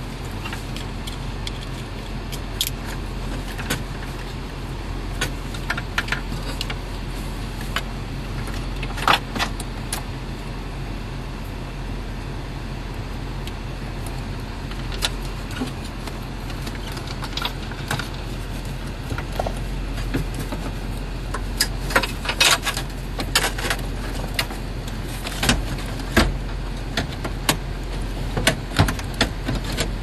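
Plastic wiring-harness connectors and a car stereo head unit clicking and knocking as they are handled in a dashboard, over a steady low hum. The clicks come in scattered groups, busiest in the last third as the head unit is pushed back into the dash.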